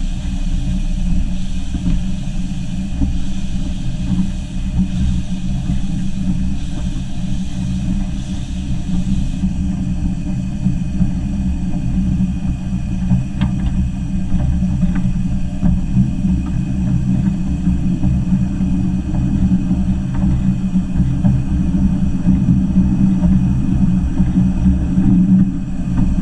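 Ravenglass & Eskdale Railway's 15-inch-gauge steam locomotive 'Northern Rock' on the move, heard from its cab side: a steady, heavy rumble, with a fainter hiss above it that stops about nine seconds in.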